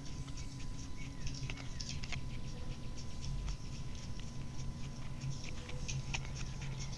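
Small hand trowel scraping and digging in the dirt around a buried water pipe, a run of short irregular scratches as soil is scraped and pushed aside.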